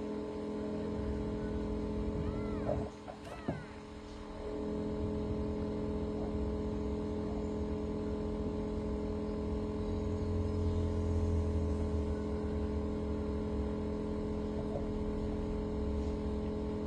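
A steady low mechanical hum with several held tones and a deep rumble underneath, dipping briefly a few seconds in. Two or three faint, short rising-and-falling high calls sound over it about two to three seconds in.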